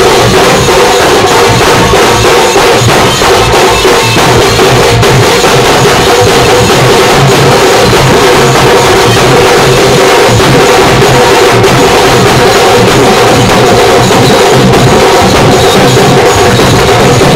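Loud festival music with fast, dense drumming and percussion over steady held tones.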